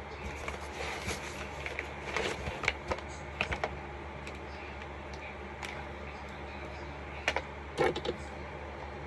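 Cardboard shipping box and product packaging being handled as items are lifted out: scattered sharp clicks, taps and rustles of cardboard and plastic, bunched about two seconds in and again near the end, over a steady low hum.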